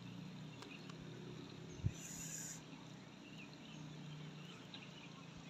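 Faint crackling of a small wood campfire under quiet morning outdoor ambience, with a few faint chirps. There is a single low thump about two seconds in, followed by a brief hiss.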